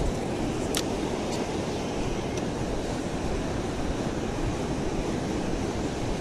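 Ocean surf breaking on a beach with wind rumbling on the microphone, a steady rushing noise. A few faint clicks come in the first couple of seconds.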